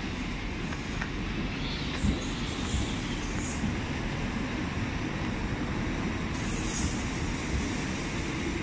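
LNER Azuma (Hitachi Class 800-series) train running slowly along the platform: a steady low rumble of wheels on rail, with brief high-pitched squeals about two seconds in and again about six seconds in.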